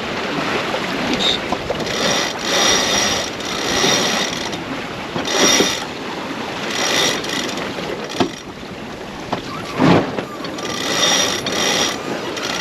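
Sailboat sheet winch being cranked in several spells during a jibe, its pawls clicking rapidly, over wind and water noise. A single thump comes near the end.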